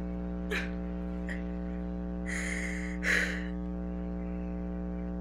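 Two breathy gasps about two and three seconds in, over a steady electrical hum. A couple of faint clicks come earlier.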